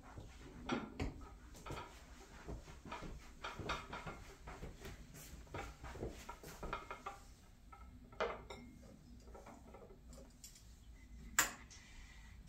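Dishes being handled and set down on a dining table: a run of faint, irregular clinks and light knocks, with a sharper clink about eleven seconds in.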